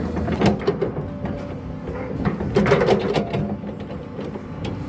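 Tracked hydraulic excavator running steadily, with irregular clanks and knocks as its bucket works soil back into the trench.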